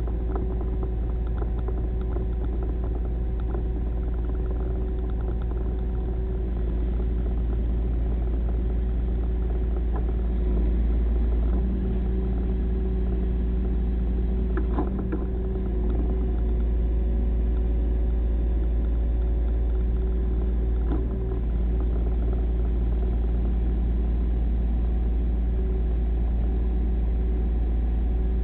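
Massey Ferguson tractor engine running steadily under a man at the controls, its note shifting a little a few times, with a few faint knocks.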